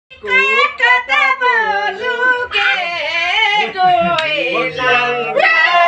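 A high-pitched voice singing a melody with no instruments.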